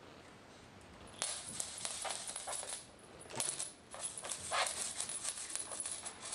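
A small bell on a cat toy jingling and rattling in quick, irregular shakes as kittens bat and play with it. It starts about a second in, pauses briefly around the middle and picks up again.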